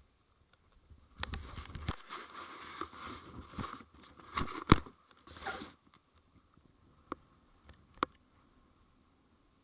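Skis scraping and crunching over snow for about four seconds, with sharp knocks inside the run and a couple of separate sharp clicks afterwards.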